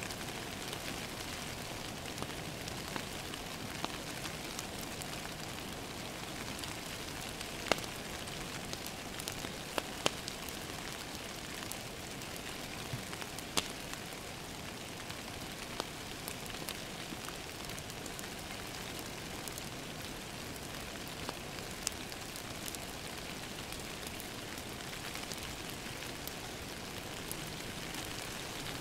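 Steady rain pattering on window glass together with a crackling wood fire, with occasional sharp pops standing out several times.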